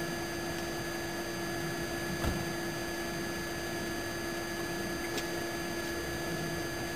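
Steady hum and hiss with two constant whining tones, one low and one higher, and a faint single knock a little over two seconds in.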